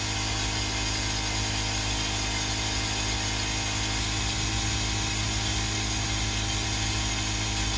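Homemade gasoline burner, its fuel atomized with compressed air, running steadily in its flame tube: a constant rushing noise with a steady hum underneath.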